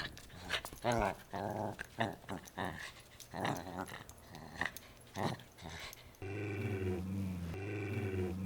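A dog gives a series of short, sharp barks and snarls. About six seconds in, it settles into a steady, low, rumbling growl.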